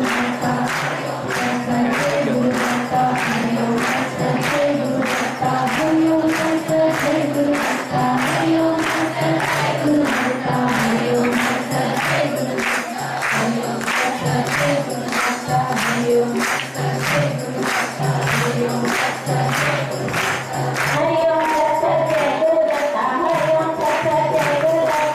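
Devotional group singing, a bhajan, with several voices over a steady percussion beat.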